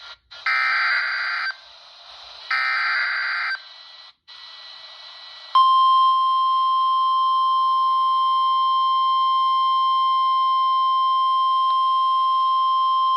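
NOAA Weather Radio emergency alert through a weather radio's speaker: two buzzy data bursts of the SAME alert header, each about a second long and a second apart, with static hiss between them. About five and a half seconds in, the steady 1050 Hz warning alarm tone begins and holds, the signal that a warning message is about to be read.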